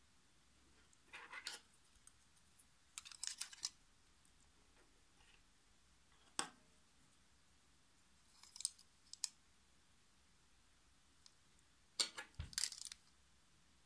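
Plastic hair clipper attachment combs clicking and clattering as they are handled and set down on a table, in short scattered bursts. The loudest comes near the end, with a low knock against the table.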